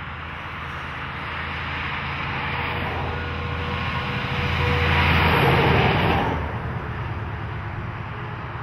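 Kenworth cab-over B-double truck's diesel engine and tyres approaching and passing close by, growing steadily louder to a peak about five to six seconds in, then dropping away quickly.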